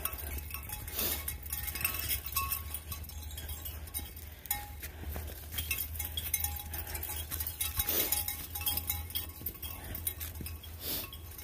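Footsteps crunching and rustling through dry fallen leaves on a trail as a person walks with dogs running alongside, with light metallic clinking mixed in.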